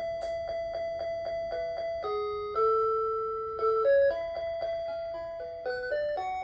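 1996 Hitachi DW-237 melody alarm clock, an OEM Citizen Melody Box Half, playing one of its built-in children's songs as its alarm: a simple electronic chime tune of clean, steady notes over a lower accompaniment line. A small click sounds about a quarter second in.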